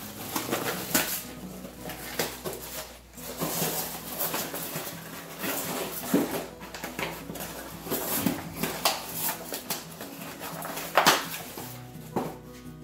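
Alaskan malamute chewing and tearing a cardboard box: irregular crackling rips and crunches of cardboard, with several sharper tears, the loudest about eleven seconds in.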